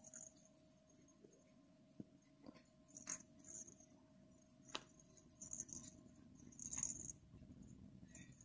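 Faint rustling and scratching of fingers pressing bead fiberfill into a crocheted yarn ball, with a few soft clicks, the loudest about seven seconds in.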